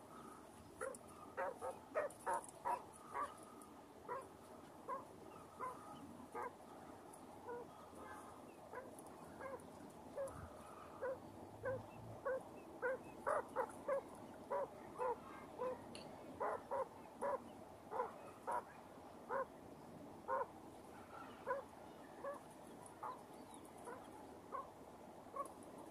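Broody quail hen giving a long series of short, low clucking notes, about one or two a second and sometimes in quicker runs: the call a hen keeps up to her newly hatched chicks.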